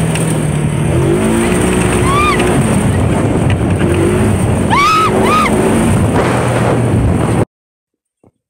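Side-by-side UTV engine running under way, its pitch rising and falling with the throttle, with a few brief high-pitched yells from the riders. The sound cuts off abruptly near the end.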